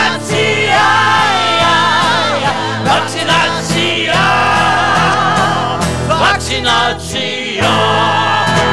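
Song with several voices singing together in harmony over a steady low accompaniment, with brief breaks between phrases.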